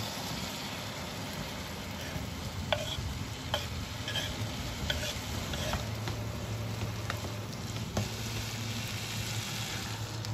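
Diced corn, carrots and potatoes sizzling in a frying pan as a wooden spatula stirs them, with a handful of sharp knocks of the spatula against the pan.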